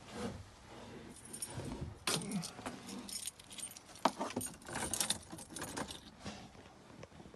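Car keys jangling in irregular metallic clinks.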